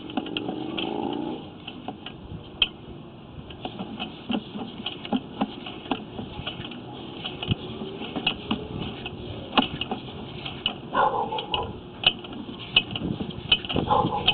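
Sewer inspection camera's push cable and reel being pulled back through the line, giving irregular clicking and rattling ticks. A short buzz sounds at the start.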